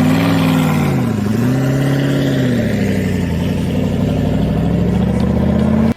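An engine revving under load: the pitch rises, dips about a second in, rises again, then falls and climbs slowly before cutting off abruptly.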